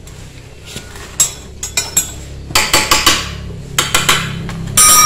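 Metal hand tools clinking and tapping against a Honda Supra X 125's engine side cover during teardown: a string of sharp metallic clinks, with the loudest, ringing clink near the end.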